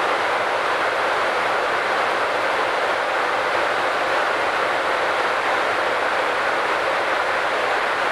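Steady rushing airflow noise on an Airbus A350-900 flight deck during the climb, an even hiss that does not change.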